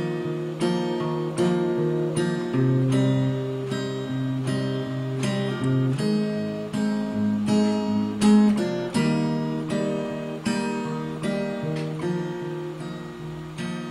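Capoed acoustic guitar playing a slow, even strumming pattern. Each stroke lets the chord ring on, and the chord changes every few seconds.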